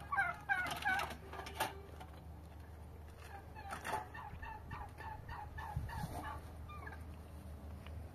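Domestic fowl calling: strings of short, quick calls, busiest in the first second and again through the middle.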